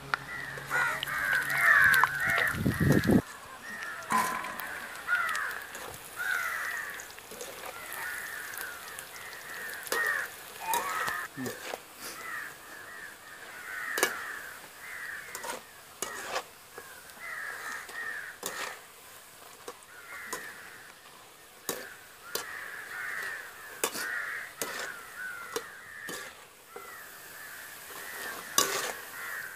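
Birds calling over and over, with scattered sharp clicks and knocks from a metal ladle stirring shrimp as they deep-fry in a pot of oil.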